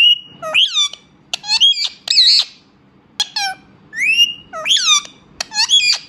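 Indian ringneck parrots squawking: about a dozen short, shrill calls with sharply rising and falling pitch, coming in quick clusters with a brief pause about halfway through.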